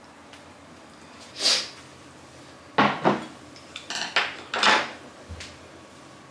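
Kitchenware clattering: dishes and utensils knocking together in a handful of separate sharp clinks, one about a second and a half in, then a cluster over the next two seconds, and a soft low knock near the end.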